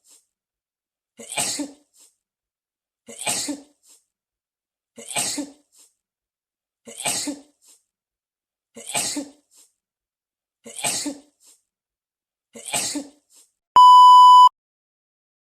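A person's short sneeze, the same clip played seven times about two seconds apart, then a loud electronic beep just under a second long near the end.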